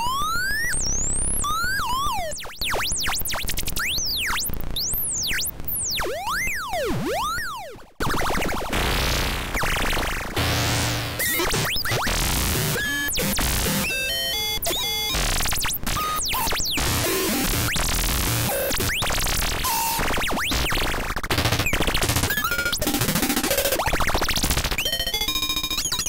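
DIY analogue synthesizer prototype making linear-FM random effects: for the first several seconds, fast swooping pitch sweeps rising and falling, then from about eight seconds in a dense, harsh, clangorous texture of jumping tones and noise, with VCO2 pitch-modulated by LFO2 and frequency-modulated by VCO3 with its FM feedback at maximum.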